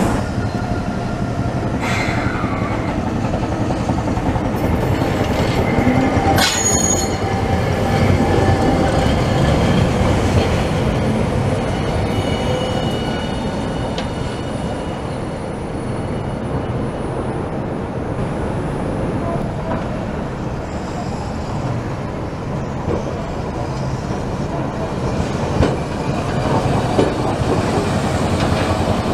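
Hiroshima Electric Railway streetcars running along street track, a steady rumble of the cars on the rails. The wheels squeal in high thin tones on the curve, mostly in the first several seconds, with a few clicks from the rail joints.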